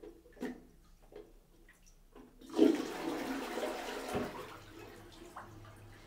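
A few faint knocks, then about two and a half seconds in a toilet flushes: a sudden rush of water in the bowl that fades away over about two seconds.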